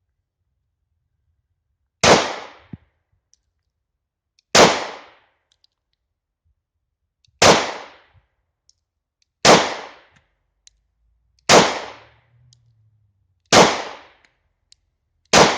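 Seven 9mm shots from a German P.08 Luger pistol, fired singly at a slow, even pace of about one shot every two seconds, each with a short fading echo.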